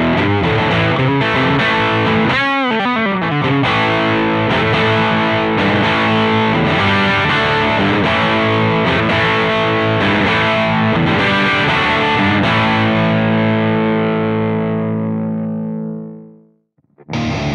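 Background music led by a distorted electric guitar playing sustained chords, with a brief swooping bend in pitch about two seconds in. The last chord fades out near the end, and after a moment of silence a new guitar part starts.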